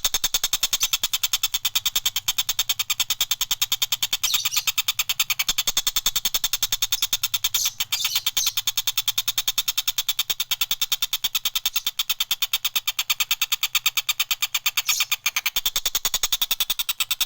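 Tengkek buto kingfisher calling in a fast, even rattle of short sharp notes, about ten a second, kept up without a break.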